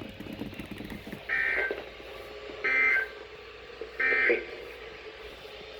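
Emergency Alert System end-of-message data bursts: three short, buzzy digital tone bursts with about a second's pause between them, signalling the end of the severe thunderstorm warning broadcast.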